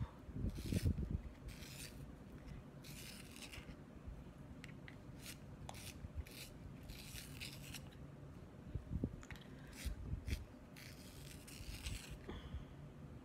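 An ebony drawing pencil with a broken tip being sharpened by hand: a string of short dry scraping strokes with pauses between them, and a few soft knocks from handling.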